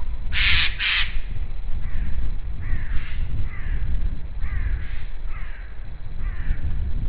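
Two loud, harsh caws in quick succession from a crow, followed by several fainter, shorter falling calls, over a steady low rumble.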